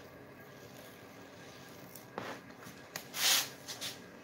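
Razor blade cutting hard vinyl boat-seat covering along a row of staples: quiet at first, then a few short scraping strokes in the second half, the longest and loudest near the end.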